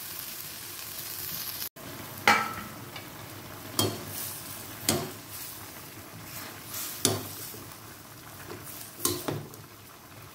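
Pork and cabbage sizzling in a non-stick wok while a wooden spatula and a metal ladle stir them, knocking against the pan about half a dozen times.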